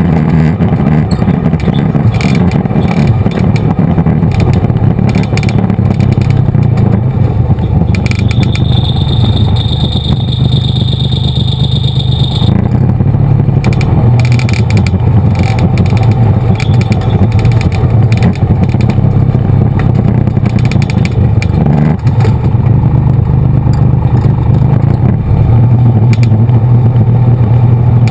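ATV engine running steadily under way on a bumpy dirt trail, with rattling from the machine over the bumps. A high steady whine sounds over it for about four seconds in the middle.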